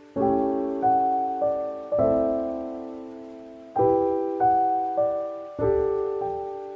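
Background music: slow, gentle piano. Notes and chords are struck every half second to a second and left to ring and fade, with a longer held pause in the middle.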